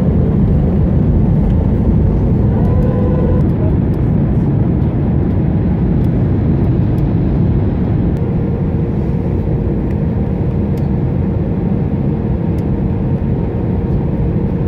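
Airliner cabin noise during landing: a steady, loud rumble of engines and rushing air, with a faint steady hum running through it.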